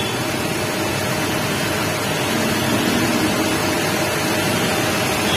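Steady rushing background noise, like a running fan or distant traffic, with a faint constant hum.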